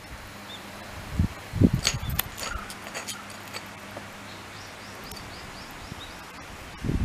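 Light clicks and taps of a Shiba Inu's claws scraping at the asphalt as it paws at something on the ground, bunched about two seconds in, with a couple of soft thumps just before. Near the end a faint run of short high bird chirps sounds over a low steady background.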